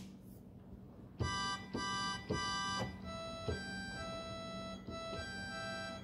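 Electronic keyboard played on an organ voice: after about a second, three short chords in quick succession, then held notes with the top line changing over a sustained lower note. A steady low hum runs underneath.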